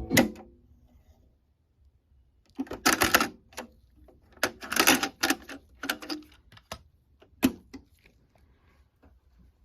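Music from the Technics 610 cassette deck cuts off with a clunk, then the deck's transport keys and cassette mechanism give a run of irregular mechanical clicks and clunks, from about three to seven and a half seconds in.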